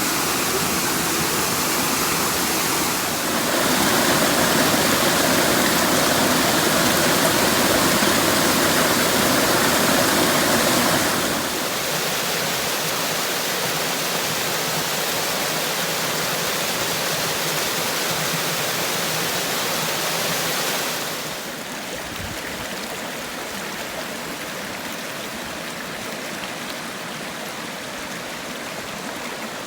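Water rushing down the rocky cascades of a mountain creek: a steady, even rush that grows louder a few seconds in, then drops back in two steps, about a third and two thirds of the way through.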